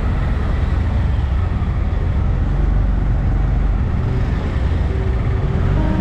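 Road traffic passing close by, auto-rickshaws and other vehicles, as a steady low engine rumble.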